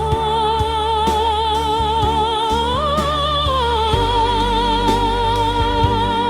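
AI-generated song music: one long lead melody note with vibrato held over sustained bass, stepping up about three seconds in and back down a second later.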